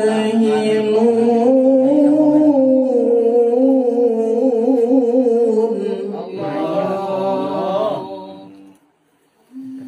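Male qori's melodic Qur'an recitation: one long, ornamented note with wavering pitch that stops about eight seconds in. After a brief silence, a new steady held note begins near the end.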